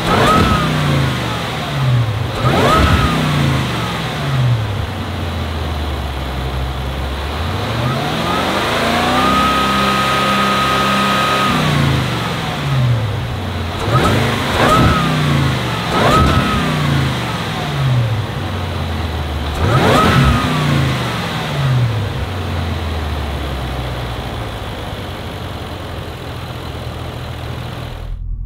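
Defender's supercharged V8 free-revved while stationary: a string of quick blips that rise and drop sharply, and one longer rev held steady for about three seconds in the middle. Near the end it settles back to idle.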